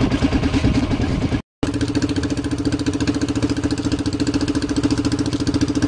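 Small boat engine running steadily with a fast, even putter, cut off for a split second about a second and a half in.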